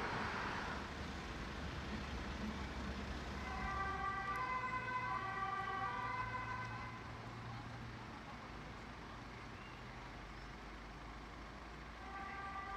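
A German two-tone emergency-vehicle siren, alternating between two pitches, comes in about three seconds in, fades after a few seconds and returns near the end. A steady low engine rumble runs underneath.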